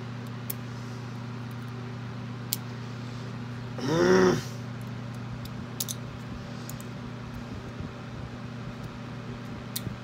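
Light metal clicks of a hook pick prying at a tight retaining ring inside a ratchet head, over a steady low hum. About four seconds in, a short groan from the person working it, the loudest sound.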